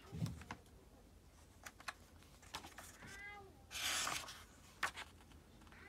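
Pages of a hardcover book being handled and turned, with light paper taps and a loud paper swish about four seconds in. A brief high, wavering cry is heard just before the swish.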